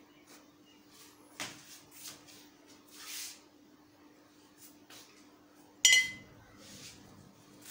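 A few light knocks and a soft rustle, then one sharp, ringing clink of a hard object striking something hard, about six seconds in; a faint steady hum runs underneath.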